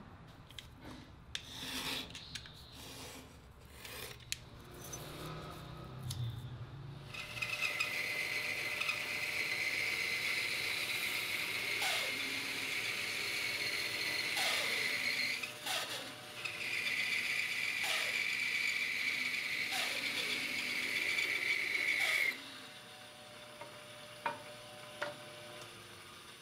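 A power tool working a piece of wood: it runs steadily with a high whine for about fifteen seconds, with a short break about halfway, then stops abruptly. Scattered knocks and handling of the wood come before it.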